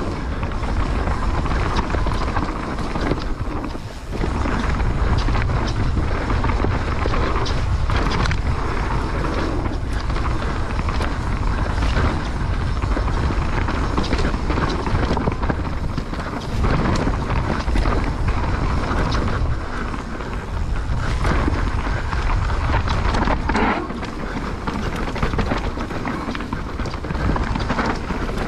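Mountain bike riding down a dirt trail: wind buffeting the microphone over continuous tyre and bike rattle noise, with frequent knocks from bumps.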